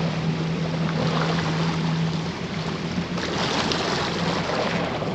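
Yamaha FX SVHO jet ski engine running with a steady hum over rushing, splashing water. The hum breaks up a little past two seconds in, and the water noise grows louder about three seconds in.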